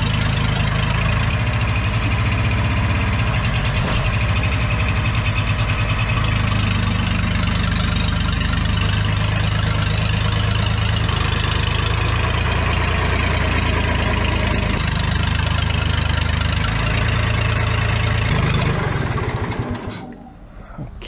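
Old truck engine, brought back from a non-running state and said by the owner to need a rebuild, running steadily; it stops or fades out sharply near the end.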